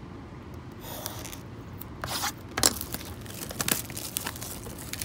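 Trading card hobby box being opened by hand: packaging tearing and crinkling in irregular crackly bursts, beginning about two seconds in.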